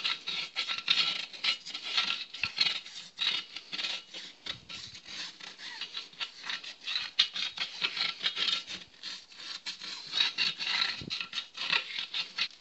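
Paintbrush bristles scrubbing rapidly back and forth along a tyre bead and steel wheel rim, an irregular scratching of many quick strokes. Thin homemade rubber-and-petrol bead sealant is being brushed into the joint to stop air leaking past the bead.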